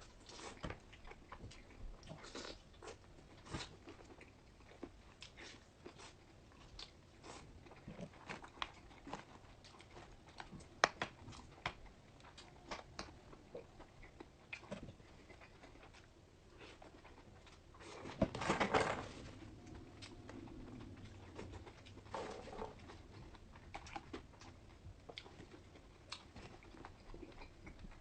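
Close-miked eating: a person chewing and biting food, with scattered wet clicks and crunches and a louder, longer bite or slurp about two-thirds of the way through.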